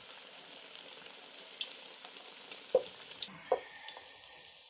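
Squares of dough deep-frying in hot oil in a wide pan, a steady sizzling hiss. About three seconds in, two short clinks of the metal slotted spoon against the pan.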